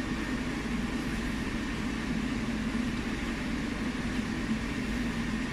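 Steady low hum over a light hiss from a high-frequency plastic welding machine that has just been switched on and is idling.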